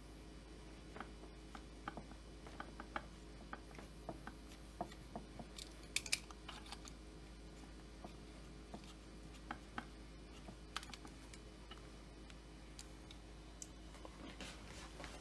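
Light scattered clicks and taps from small metal parts and tools being handled on a workbench, with a sharper pair of clicks about six seconds in, over a steady low hum.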